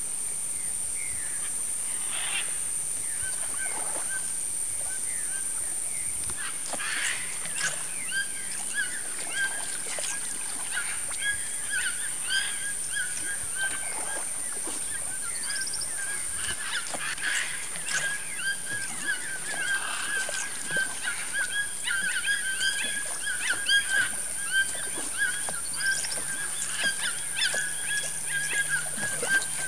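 A chorus of short animal calls repeating rapidly, growing denser after the first few seconds, over a steady high-pitched drone.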